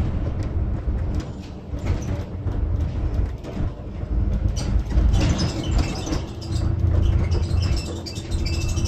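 A double-decker bus on the move, heard from the upper deck: low engine and road noise with a steady hum and rattling from the bodywork, getting louder about halfway through.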